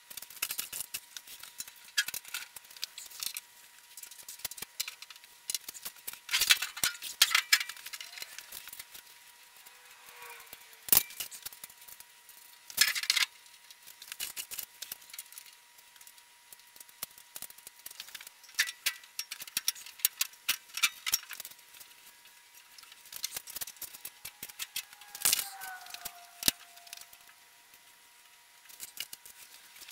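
Sheet-metal panels, bolts and hardware of a steel blast cabinet clattering as it is assembled, played back fast: an irregular string of sharp clicks, clinks and rattles, with a couple of brief squeaks.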